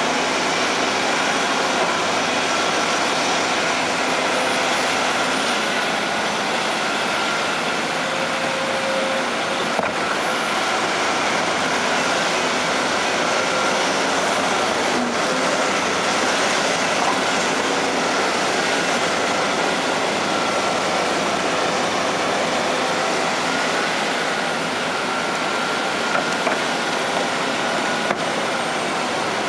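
Diesel engines of a Volvo EC240C crawler excavator and a Caterpillar wheel loader running steadily, with hydraulic whine, as the excavator loads earth into the loader's bucket. A few faint knocks come near the end.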